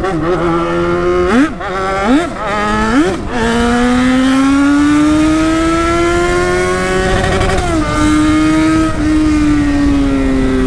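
Yamaha XJ6's 600 cc inline-four motorcycle engine, very loud, heard from the rider's seat while riding: three quick throttle blips in the first few seconds, then a long pull with the pitch slowly rising, dipping briefly about eight seconds in and again near the end.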